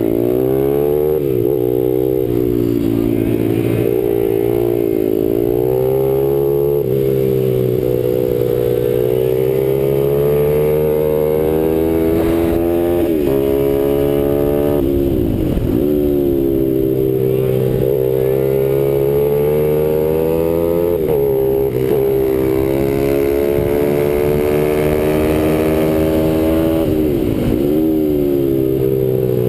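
RAV SM7 pit bike's 160 cc single-cylinder four-stroke engine at race pace, revving up through the gears and then dropping sharply under braking and downshifts for the corners, about six times.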